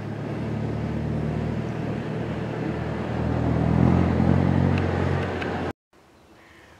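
A motor vehicle engine running steadily, growing louder about three seconds in, then cut off suddenly near the end.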